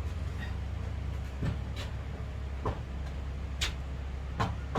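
About five light knocks and clicks, spaced irregularly, over a steady low hum.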